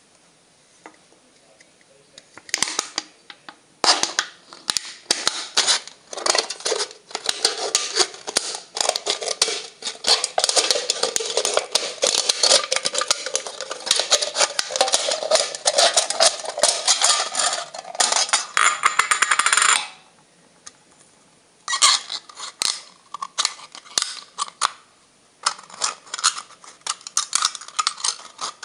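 Knife blade scraping and cutting into a thin aluminium drinks can, a dense, crackling run of small metallic scrapes and clicks as the can is worked against the blade. It stops for about two seconds a little over two-thirds of the way in, then starts again.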